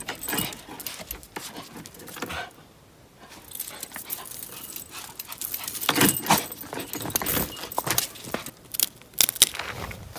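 Two small dogs playing and scuffling together, their metal tether chain and collars jingling with irregular clicks and scrapes. The sounds are loudest about six seconds in and again near the end.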